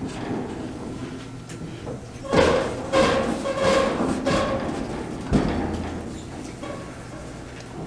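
An adjustable wrench clinks and scrapes against a brass flare fitting on a propane gas inlet as it is put on and tightened. There are several metal knocks with brief ringing a little over two seconds in, and a sharper knock about five seconds in.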